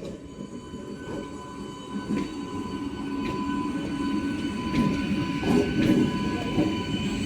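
Purple EMU electric local train rolling slowly past at close range, a low rumble growing steadily louder. It carries a thin steady whine on top and occasional clicks as the wheels cross rail joints.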